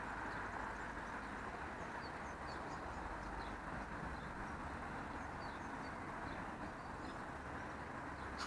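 Steady distant hum of town traffic, with scattered short, high bird chirps over it.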